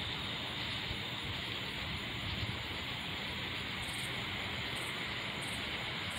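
Night insect chorus of crickets trilling steadily, with short high-pitched chirps repeating a little faster than once a second from about four seconds in.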